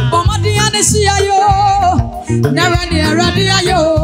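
Women singing into microphones over backing music, with long held, wavering notes and a steady bass line; the sound dips briefly about two seconds in.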